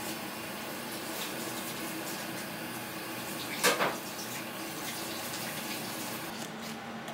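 Tap water running steadily into a kitchen sink, with one brief, louder burst of noise about three and a half seconds in.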